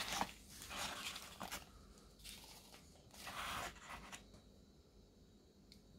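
Small plastic bottles being handled and shifted in a cardboard box: a handful of short, faint scraping rustles.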